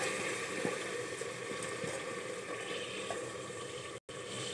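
Steady sizzling and bubbling of a tomato-based vegetable masala cooking in an open pressure cooker on the stove, with a few faint light ticks.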